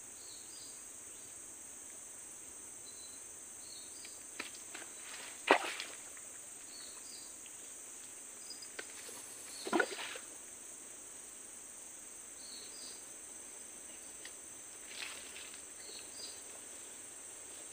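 Steady high-pitched drone of insects, with short chirps now and then. A few sharp knocks and rustles break through, the loudest about five and a half seconds in and again near ten seconds.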